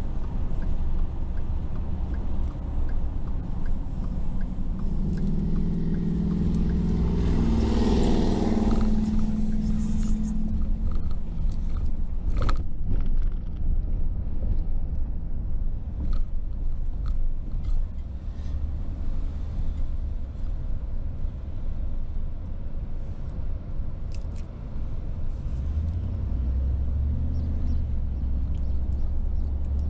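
A car driving on city streets, with a steady low engine and road rumble. About a third of the way in, a louder engine note rises in pitch along with a rush of noise. Scattered sharp knocks follow, the clearest just before halfway.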